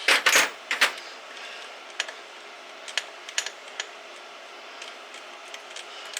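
Sharp metallic clicks and clinks of hand tools and small engine parts being handled during an engine teardown: a quick cluster of loud clicks in the first second, then scattered single taps.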